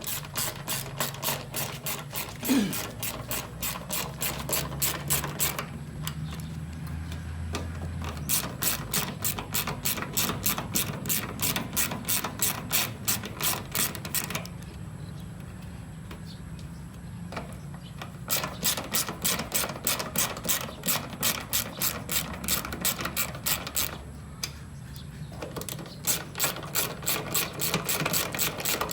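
Ratchet wrench clicking in quick, even runs, stopping and starting several times.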